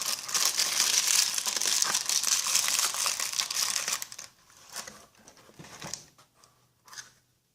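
Packaging crinkling and rustling as it is handled, dense for about four seconds, then a few faint rustles and light clicks.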